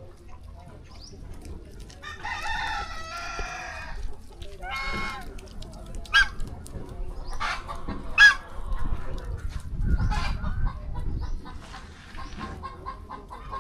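Chickens: a rooster crows once, drawn out in two parts about two seconds in, followed by a shorter call and then a series of short, sharp clucks and squawks.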